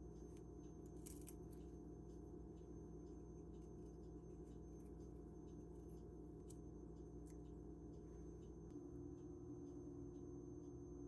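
Faint small clicks and scrapes of a paring knife cutting into fresh radishes, over quiet, steady sustained tones of soft background music that shift near the end.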